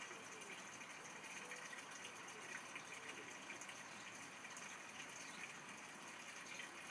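Faint steady background hiss, with no distinct sound standing out.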